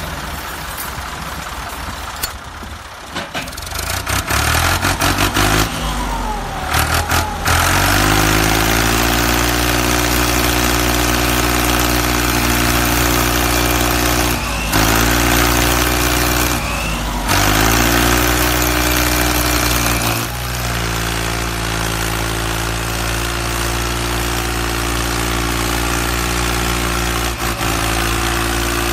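An engine cranks and starts a few seconds in, then runs steadily; its note drops briefly and picks up again three times.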